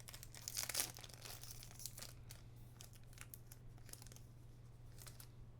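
Crinkling and rustling of a trading-card booster pack wrapper and the cards being handled. It is loudest about half a second in, then lighter rustles and clicks follow.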